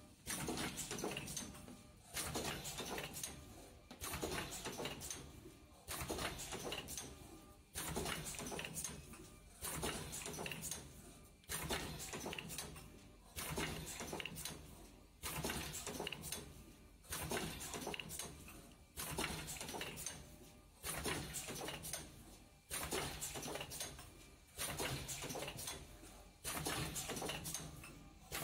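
CMAF03S-1 coffee capsule filling and sealing machine running in a steady cycle, roughly once every two seconds. Each cycle starts with a sudden mechanical clack as the rotary turntable indexes and the stations stroke, and a second or so of rattling and clattering follows before a short lull.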